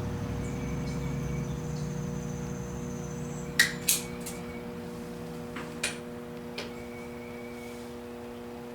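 A few sharp clicks and taps of small parts being handled, four in all between about three and a half and seven seconds in, over a steady electrical hum; a lower hum fades away over the first few seconds.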